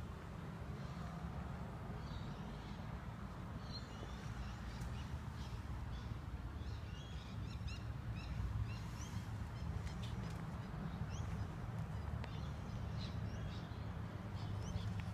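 Small birds chirping in quick short notes, over a steady low rumble.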